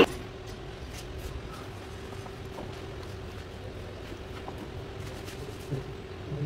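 Faint clicks of an automatic transmission valve body being handled and fitted into place, over a steady low hum.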